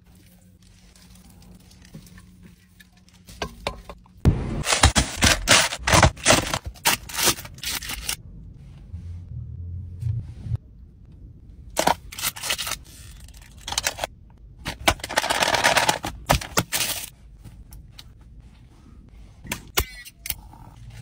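Close-up eating and food-handling sounds: repeated bursts of crackling and scraping from food and paper wrapping, with a few sharp clicks near the end as a drink can is handled.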